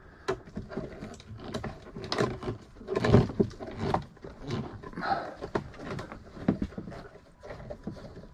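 Irregular clicks, scrapes and knocks of a hand tool working at the rusted-on fasteners of a Lotus Esprit headlight pod, with a louder clatter about three seconds in.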